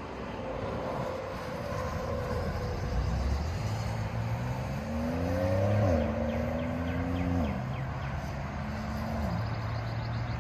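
A car accelerating along the road. Its engine note climbs, then drops in steps about six, seven and a half and nine seconds in as it shifts up through the gears, over steady traffic and tyre noise. It is loudest around the first shift.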